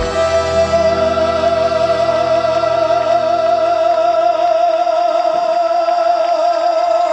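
A singer holds one long final note with a wide vibrato over the band's sustained closing chord, the low accompaniment fading partway through and the note ending near the end, in the style of a live trot song's finale.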